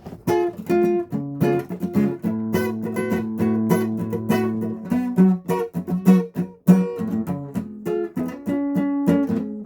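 Acoustic guitar strummed in repeated chords, changing chord every second or two, played by a first-day beginner.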